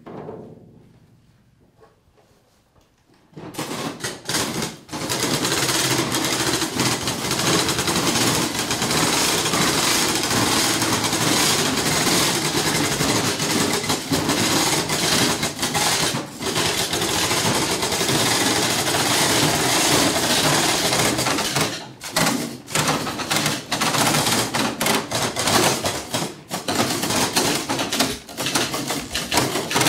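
A single knock, then near quiet, then a loud, dense rattling clatter that starts abruptly about three seconds in and keeps going, broken off briefly a few times.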